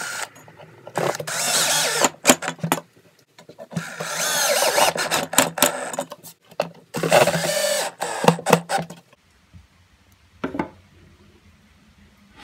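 Cordless drill driving pocket-hole screws into pine boards: three runs of a second or two each, the motor pitch wavering under load.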